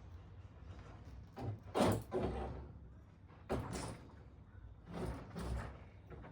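Handling noises while working on a bicycle's brake cable: three short bouts of scraping and knocking, about two, three and a half and five seconds in, the first the loudest.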